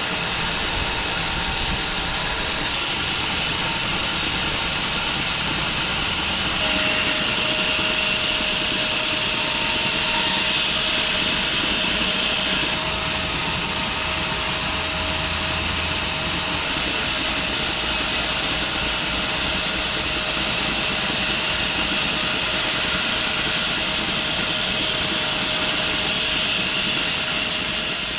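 Home-built 6 ft wide bandsaw sawmill running steadily, its engine and band blade cutting through a log with a loud, even hiss. A steady tone joins the noise about seven seconds in.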